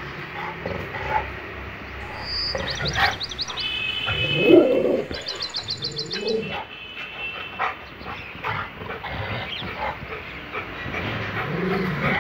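Rottweiler gives one deep bark about four and a half seconds in. Small birds chirp in quick high trills just before and after it.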